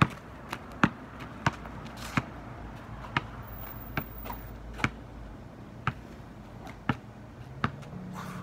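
A basketball dribbled on an asphalt driveway: sharp single bounces at uneven intervals, about one a second.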